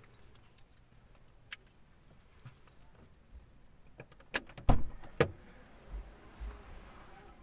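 A few sharp clicks and clinks close by, clustered in the middle with the loudest two about half a second apart, over a faint street background.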